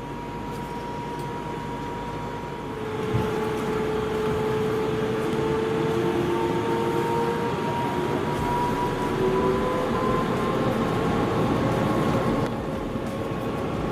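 Airbus A350-900 cabin noise: the Rolls-Royce Trent XWB engines running, with whining tones that slowly rise in pitch over a steady rush of air. The sound steps up in loudness about three seconds in as the engines spool up.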